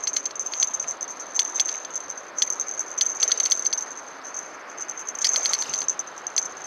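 Short runs of light clicking and rattling from a fishing rod and reel as a hooked mullet is played on the bent rod, over a steady high-pitched whine.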